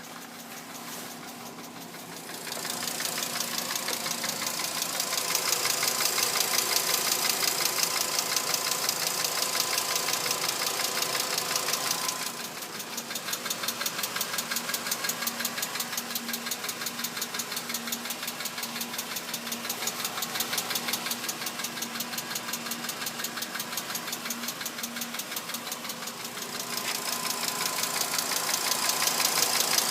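2006 VW Jetta MK5's 2.5-litre inline five-cylinder engine running with a fast, steady tick-tick-tick from the engine, a noise the owner cannot explain. The ticking grows louder a couple of seconds in, drops back about twelve seconds in, and rises again near the end.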